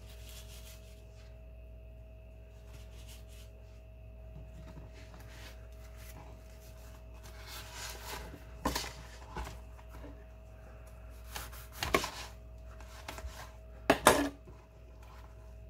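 Hands folding and rolling a flour tortilla burrito on a plastic cutting board: soft rustling and scraping, broken by a few sharp knocks on the board. The loudest comes near the end, as the burrito is cut in half with a knife. A faint steady hum runs underneath.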